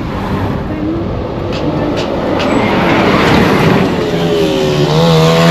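Road and engine noise of a moving vehicle, swelling about three seconds in. Near the end a wavering pitched sound comes in over it.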